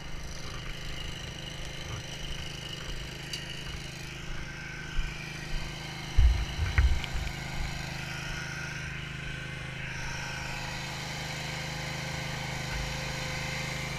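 Steady low drone of engines left running, with a few dull low thumps about six to seven seconds in.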